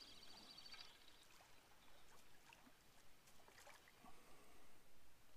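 Near silence: faint lakeside ambience with soft small water sounds and a few faint ticks. A faint high trill fades out about a second in.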